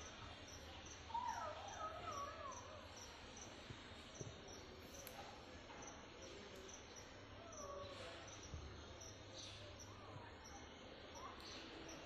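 Faint outdoor ambience: a high insect chirp repeating about twice a second, with a few scattered bird calls that slide in pitch, the clearest about a second in.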